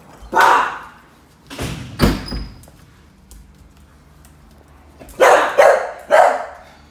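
Staffordshire bull terrier barking in short bouts: one bark, a couple more about a second and a half in, then three quick barks near the end. It is the frustrated barking of an over-excited greeter being kept from a visitor.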